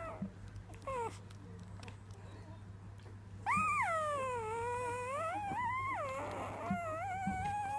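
Newborn Weimaraner puppy, three days old, whining in a long, wavering 'singing' croon: a short squeak about a second in, then a long call near the middle that dips in pitch and climbs again, and another call starting near the end.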